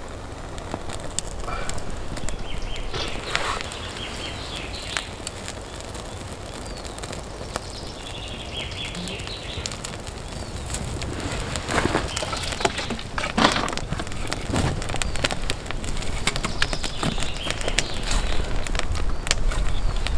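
Small campfire of twigs and kindling catching, crackling and popping, with dry twigs rustling and snapping as more are laid on.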